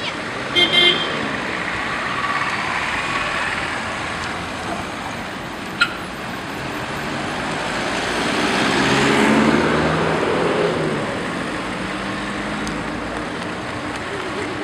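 Road traffic: car and small-truck engines passing close, one swelling and fading as it goes by about eight to ten seconds in. A few short sharp sounds stand out, a pair just under a second in and one near six seconds.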